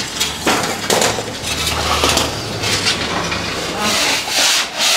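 A long wooden peel scraping and knocking inside a wood-fired brick oven as baked pav buns are raked out and dropped into a wicker basket. A run of quick scrapes comes near the end.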